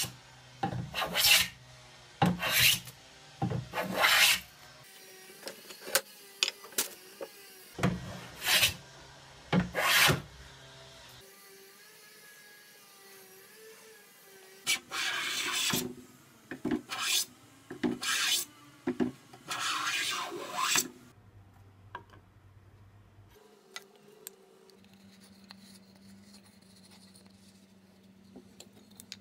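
Hand bench plane cutting shavings off a birch board: a series of short rasping strokes with gaps between them. A pause comes about halfway, then more strokes, and they stop about two-thirds of the way in.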